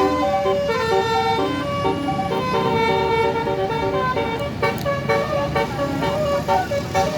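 Telolet basuri bus horn playing a quick melody of stepped notes, more than one tune at a time, over a steady low rumble.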